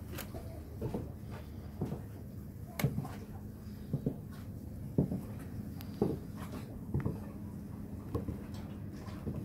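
Platform stiletto heels stepping on wooden deck boards: a hollow knock at each step, about one a second.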